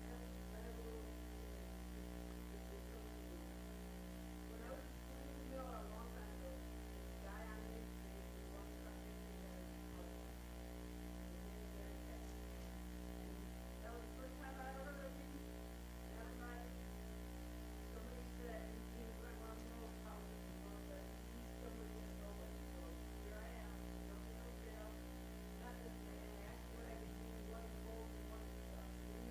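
Steady electrical mains hum with a stack of overtones, with faint, scattered wavering sounds above it.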